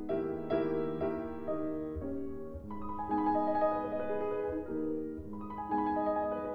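Slow, calm instrumental background music led by piano, with held notes and chords that change about every second.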